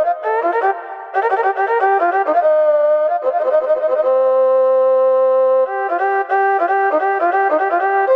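Yamaha PSR-S750 arranger keyboard playing a quick single-line melody, with one long held note about four seconds in before the quick notes resume.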